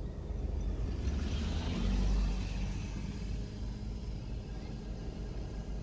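Car engine and road noise heard from inside the cabin: a steady low rumble that swells briefly with added hiss about a second or two in.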